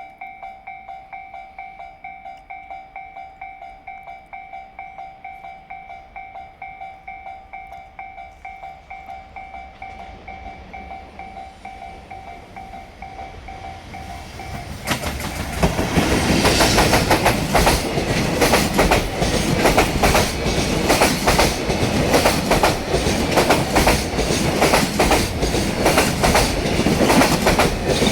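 A level-crossing warning bell dings over and over in a steady rhythm. From about ten seconds in, an approaching train rumbles louder. About halfway through, an EF210 electric freight locomotive and its container wagons pass close by, with loud rapid clatter from the wheels going over the rail joints that drowns out the bell.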